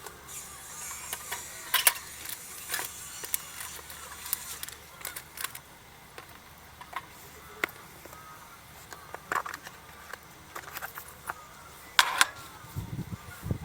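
Irregular sharp clicks and light clinks of small hard objects being handled, loudest near two seconds in and again near twelve seconds in.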